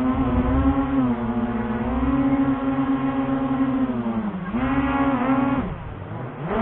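Small quadcopter drone's electric motors and propellers buzzing, heard close up, the pitch sagging and rising as the throttle changes. Near the end the buzz drops away, then winds back up steeply.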